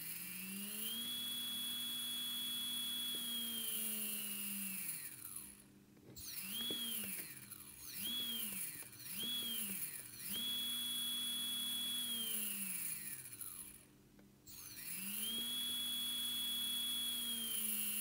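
Small brushless outrunner motor, driven through an electronic speed controller, spinning up with a rising whine, holding at speed, then winding down as its throttle is pushed and released from the joystick. It gives a long run, three short quick bursts, then two more long runs, the last still going at the end.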